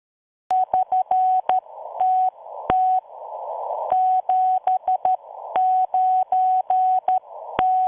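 Morse code: a single mid-pitched beep keyed on and off in short and long marks, with clicks at each key and radio-style hiss filling the gaps between, starting about half a second in.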